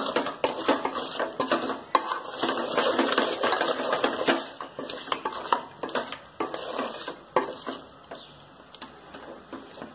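Wooden spatula stirring raw mutton pieces with onions and tomatoes in a metal pot, with quick scrapes and clatters against the pot. The stirring is busy at first and thins out to fewer, quieter strokes over the last few seconds.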